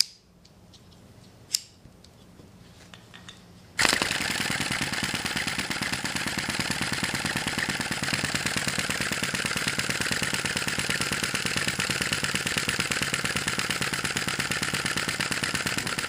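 Sai Hu V1-45 flame-licker (vacuum) model engine catching about four seconds in and then running steadily, with a fast, even mechanical clatter from its piston, valve and linkage. Before it catches there is a single sharp click.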